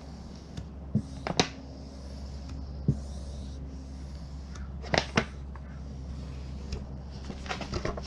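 Handling noises from work on a vinyl door decal, likely a squeegee and backing paper against the car door: scattered light rustles and about five sharp clicks, over a steady low hum.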